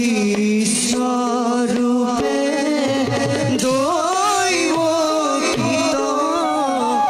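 Live devotional accompaniment for a Bhaona dance: a singing voice carrying a wavering, drawn-out melody over a steady held drone, with drum strokes and bright cymbal-like accents.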